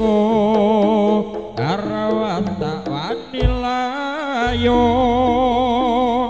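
Live Javanese jaranan ensemble music: a high melody of long held, wavering notes with slides between them, over the band, and a deep low note comes in about four and a half seconds in.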